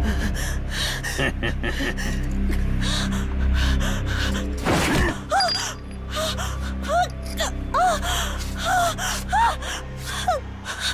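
Dramatic background music with a person gasping and letting out short pained cries. There is a brief rush of noise about five seconds in, and the cries come in quick succession after it.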